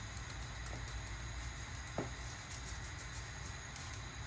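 Steady low kitchen hum while ground pepper is shaken from a small paper sachet into a pot of broth, with a sharp tap about two seconds in and a louder knock at the very end.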